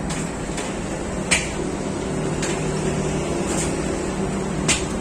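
Steady low hum of bakery machinery, with a sharp click or tap every second or so, the loudest about a second and a half in and near the end.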